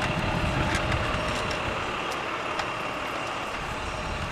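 Steady outdoor background noise: an even rushing haze with a rumbling low end and a few faint ticks.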